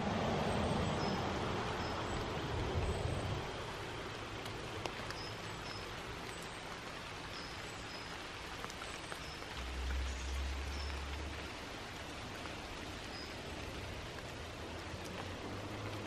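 Forest ambience: a steady, even hiss of outdoor air noise, a little louder in the first few seconds, with faint short high chirps scattered through it.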